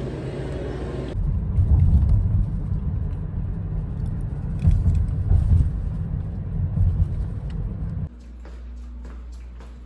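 Low, uneven rumble inside a car cabin that swells louder several times, then drops to a quieter steady hum about eight seconds in.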